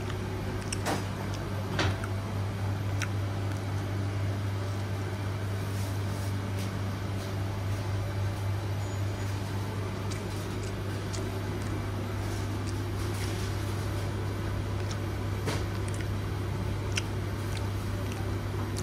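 A steady low machine hum with a few faint clicks and knocks scattered through it.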